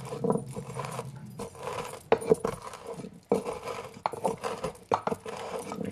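Pestle pounding and grinding fennel seeds, red peppercorns and chili flakes in a mortar: irregular knocks with gritty crushing between them.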